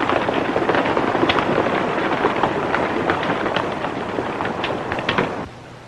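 Several horses galloping: a dense, rapid clatter of hoofbeats that cuts off suddenly near the end.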